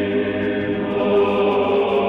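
Church choir singing slow, held chords.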